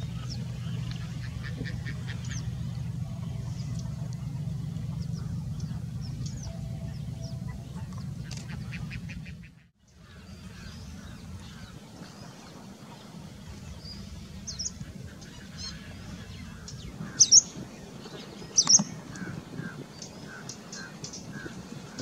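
Many wild birds calling in the background, with short chirps and call notes; two sharp loud calls come about seventeen and nineteen seconds in. A steady low rumble runs under the first half, and the sound cuts out briefly near the middle.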